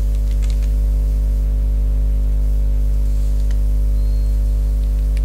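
Steady electrical mains hum on the recording, low and buzzy, with a few faint computer keyboard keystrokes as a word is typed.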